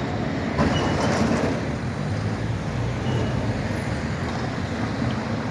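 Tram running on street track amid road traffic: a steady low rumble, with a louder surge about half a second in.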